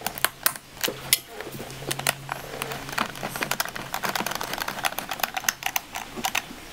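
Irregular clicks and taps of a hand tool and screws against a plastic kart-engine air box as its two M6 screws are fitted.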